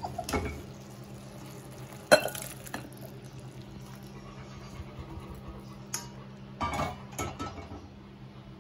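A pan clinking and knocking against a glass bowl as sautéed green beans with glass noodles are tipped into it, with a sharp clink about two seconds in and a cluster of knocks near seven seconds. A steady low hum runs underneath.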